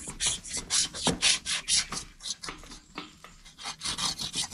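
A hand tool scraping and rubbing the wood of a Taiwan premna bonsai trunk in quick, uneven strokes, a few a second, easing off briefly midway.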